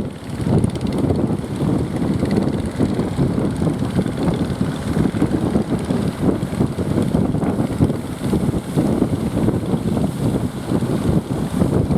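Strong wind buffeting the microphone, a loud, gusty rumble.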